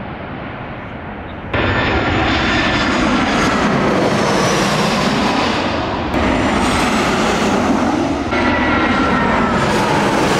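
Jet airliners flying low overhead on final approach to land: a loud engine roar with high whining tones that slide down in pitch as each aircraft passes. The roar starts abruptly about a second and a half in and changes suddenly twice more, around six and eight seconds, as one flyover gives way to another.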